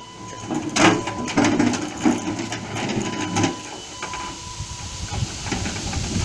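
Radio-controlled model snowblower driving and turning, its small motor and gears whirring with irregular clicks and rattles. The loudest click comes about a second in.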